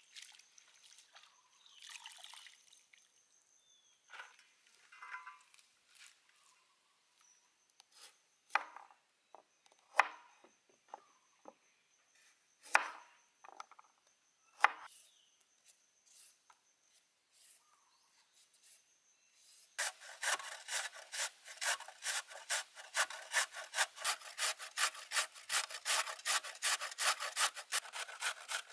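A few sharp chops of a knife cutting a carrot on a wooden cutting board, then from about 20 s in a carrot being grated on a metal box grater: rapid rhythmic scraping at about three strokes a second, the loudest sound here.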